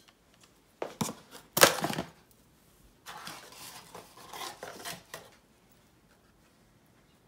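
Packaging being handled during an unboxing: a couple of sharp knocks, the loudest about a second and a half in, then a few seconds of rustling.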